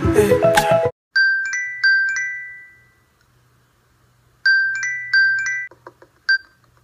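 iPhone alarm tone ringing: short, high notes in a quick rising pattern, heard in two runs with a pause between and a single note near the end. Background music ends about a second in.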